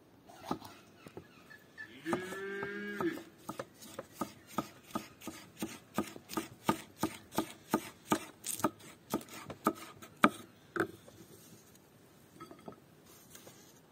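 Kitchen knife slicing a yellow bell pepper on a wooden stump chopping block: quick, even knocks of the blade on the wood, about three a second, stopping at about eleven seconds. About two seconds in, a cow gives one steady moo lasting about a second.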